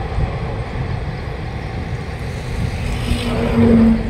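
Steady low rumble of a goods train of open-top wagons rolling past. A short horn-like tone sounds near the end.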